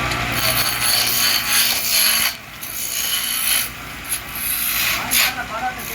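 Wood being turned on a lathe: a cutting tool scrapes the spinning wood with a steady high hiss, breaking off briefly a little after two seconds, near four seconds and again shortly before the end.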